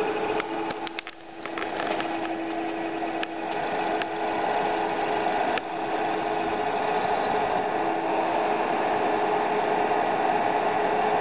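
Homemade audio-driven multilayer coil water heater running: a steady electrical hum made of several held tones over a continuous rushing noise, dipping briefly about a second in.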